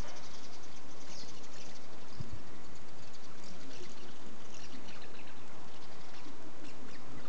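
Common house martins twittering, a scatter of short, high chirps over a steady background hiss.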